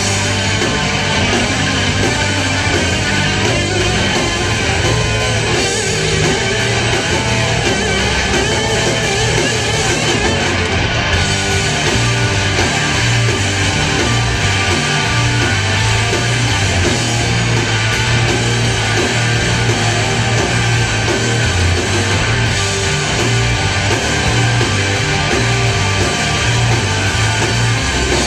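Heavy metal band playing live, loud and dense, with electric guitars over a pulsing bass.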